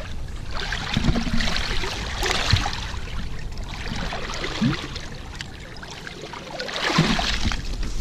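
Water splashing as a hooked sturgeon is grabbed by hand at the side of the boat and hauled out of the river. There are heavier splashes about a second in and again near the end, as the fish comes up out of the water.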